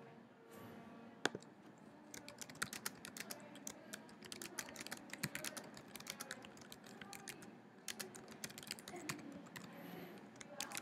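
Typing on a computer keyboard: a quick, irregular run of key clicks as a sentence is typed, stopping shortly before the end.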